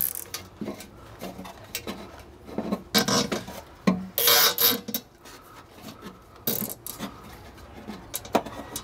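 A plastic zip tie being fitted and pulled tight by hand around a ground strap: scattered clicks and several short rasping bursts, the longest about four seconds in.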